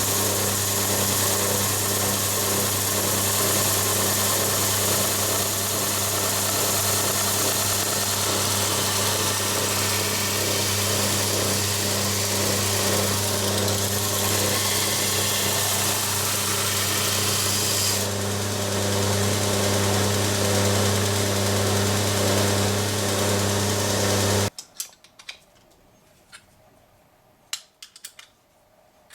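Belt grinder running steadily with the hiss of steel being ground against the belt, as the bevels of a W2 steel knife blade are ground. About five seconds before the end it cuts off suddenly, and a few light metallic clicks and clinks follow.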